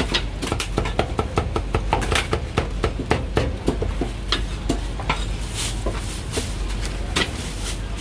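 A meat cleaver chopping char siu (Cantonese barbecued pork) on a thick wooden chopping block. It makes a rapid run of sharp knocks, several a second, that grows sparser about halfway through.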